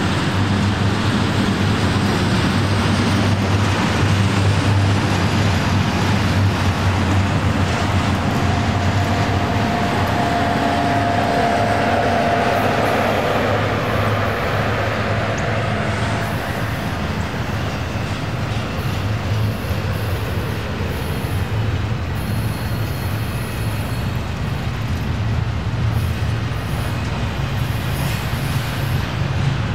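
Union Pacific double-stack intermodal freight train's loaded well cars rolling past at close range: a steady rumble of steel wheels on rail. A faint thin whine rises out of it for several seconds in the middle.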